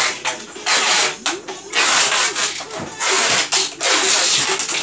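Packing tape being pulled off a roll in several quick pulls, each a second or less, as styrofoam boxes are sealed.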